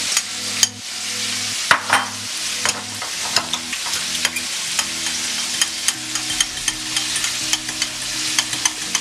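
A metal fork clinking and scraping against a ceramic bowl as a thick sauce is stirred, in many quick irregular ticks. A steady sizzle of food frying runs behind it.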